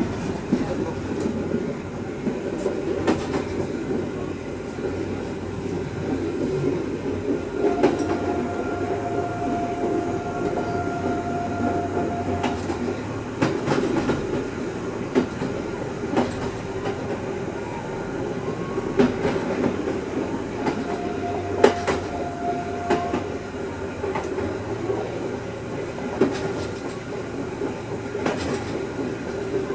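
Fiat-built Y1-type diesel railcar running at speed, heard from inside the driver's cab: a steady running noise with irregular clicks of the wheels over rail joints. A steady high tone sounds twice, for about five seconds and later for about two seconds.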